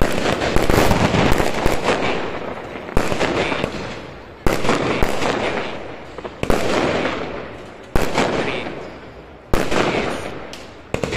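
Aerial fireworks going off in quick succession: about eight sharp bangs, one every second and a half to two seconds, each followed by a crackling shower that fades away before the next.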